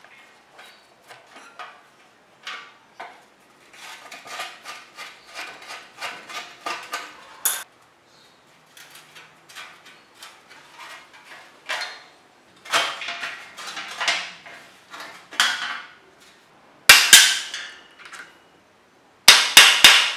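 Metal hand-tool work on an old steel bicycle: a screwdriver clicking and scraping on the rusty chain-guard screws. Near the end come two clusters of loud, sharp metal knocks.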